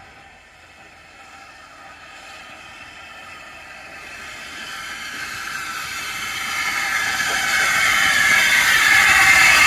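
Small steam tank locomotive running into the platform with its train, growing steadily louder as it approaches.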